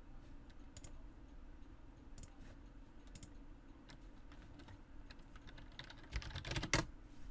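Computer keyboard keys clicking: a few scattered key presses, then a quick run of presses about six seconds in.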